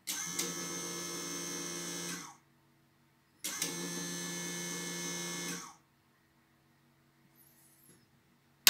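Electric bobbin winder's motor whirring at a steady high speed, started by a press of its push button: two runs of about two seconds each, each stopping abruptly. A sharp click at the very end.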